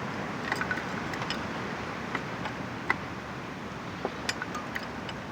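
Light scattered clicks and taps of a wrench working loose the drain screw on an ATV carburetor's float bowl, over a steady background hiss.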